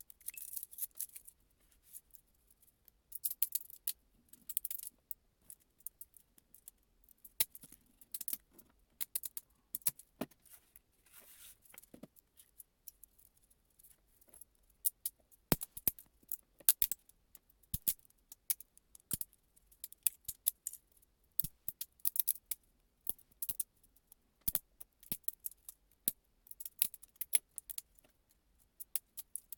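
Irregular sharp clicks and light clattering of small hard objects being handled, in uneven clusters, with a short lull about halfway through.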